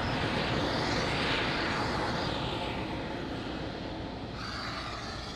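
Steady, noisy rumble from the explosion and fire at the base of SpaceX's Starship Booster 7, fading slowly. It comes from an unexpected ignition during Raptor engine testing.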